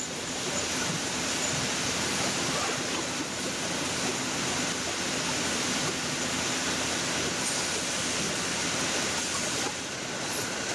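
Steady, even hiss of car assembly-line factory noise, with a faint low hum through the first half.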